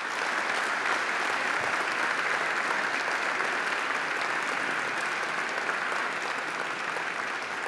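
Audience clapping steadily, easing off slightly near the end.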